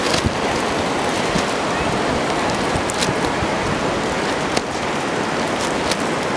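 Steady rushing wind noise on the microphone, with several sharp knocks of paddles hitting the ball during a beach paddle tennis rally.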